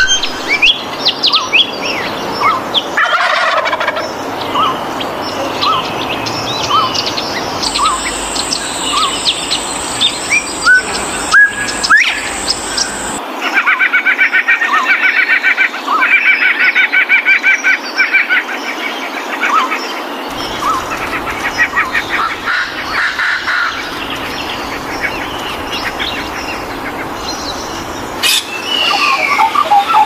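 A run of different birds' calls and chirps, edited together with abrupt changes, including a fast series of repeated notes for several seconds in the middle.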